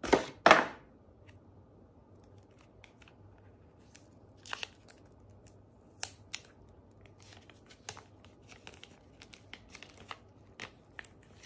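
Clear protective plastic film being peeled off a new smartphone's screen, giving scattered faint crackles and tearing rustles. Two short loud sounds come at the very start.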